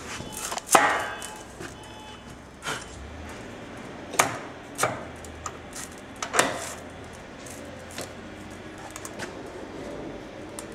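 Sharp metal knocks and clanks as a steel band saw blade is handled and set into the clamps of a blade-joining jig: about five separate knocks, the loudest about a second in with a short ring.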